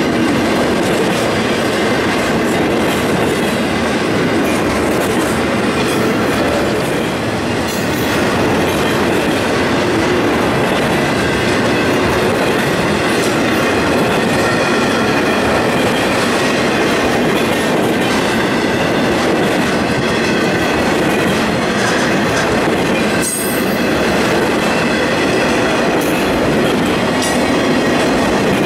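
Florida East Coast intermodal freight train rolling steadily past, its trailer and container flatcars clattering clickety-clack over the rail joints in a continuous loud rumble.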